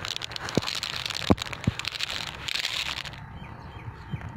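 Glass marbles in a sand track clicking and clacking against one another in a dense patter that thins out about three seconds in, leaving a few scattered sharp clicks.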